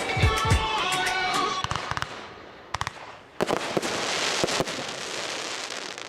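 Aerial fireworks going off: a few sharp bangs, then a loud burst about three and a half seconds in, followed by a long fading hiss of crackling. The show's music ends in the first two seconds.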